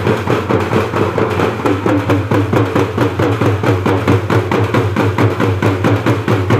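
Dappu frame drums beaten in a fast, steady rhythm of many strokes a second, over a steady low drone.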